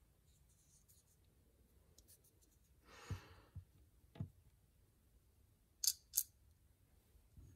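Quiet handling of a Shirogorov Hati R folding knife as a new scale is pressed into place: faint taps and a short soft hiss, then two sharp metallic clicks about a third of a second apart near the end.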